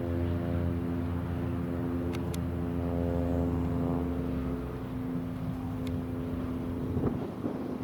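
Cessna T-41D Mescalero's piston engine and propeller droning steadily on final approach, the drone fading after about five seconds as wind noise takes over near the end.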